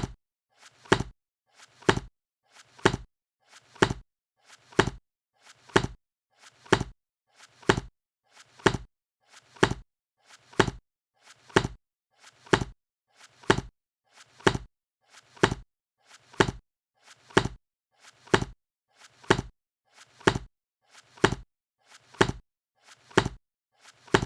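A book being shut over and over, about once a second, each close a faint tap followed a moment later by a louder clap of the covers meeting.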